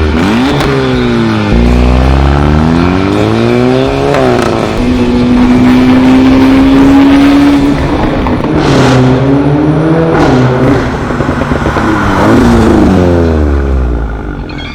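VW Golf 7 R's turbocharged 2.0-litre four-cylinder with an iPE turbo-back exhaust and Unitronic Stage 2 tune, revving loudly. It climbs and drops through a couple of long revs, holds a steady pitch for about three seconds in the middle, then gives a series of quick blips with sharp pops and crackles on the overrun.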